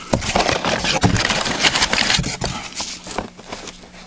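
Rustling, scraping and tapping of a paper-wrapped aerial firework ball shell being handled and turned in the hand close to the microphone, a quick irregular run of crackles that fades out about three seconds in.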